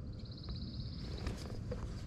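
A songbird giving a rapid, even trill on one high pitch for about a second, followed a moment later by a few light clicks.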